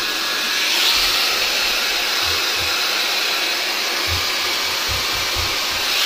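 SOOCAS A1 (Nova) high-speed hair dryer with its diffuser attachment fitted, running with a steady rush of air and a few low thumps.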